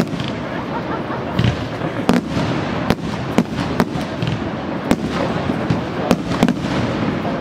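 Fireworks display: aerial shells bursting in an irregular run of sharp bangs, about one to two a second, over a steady background of noise.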